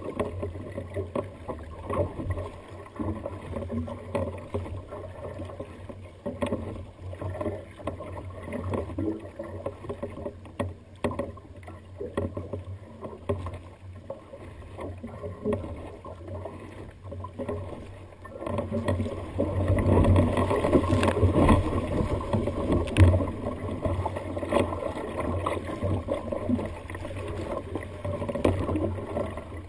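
Sea water splashing and slapping against the hull of a sea kayak moving through choppy water, in an irregular wash of small splashes. It grows louder and rougher about two-thirds of the way through.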